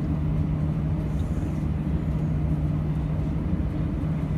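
Steady low hum of an airliner cabin, with a constant drone from the aircraft's engines and air systems as it holds position on the ground.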